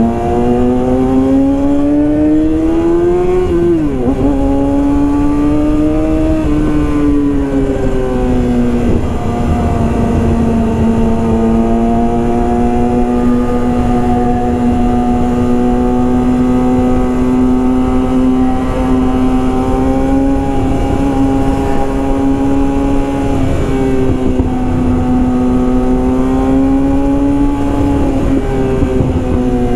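Yamaha R6 inline-four engine through a full Yoshimura exhaust system, under way: revs climb and drop sharply at a gear change about four seconds in, climb and fall again a few seconds later, then hold steady for a long stretch before rising again near the end.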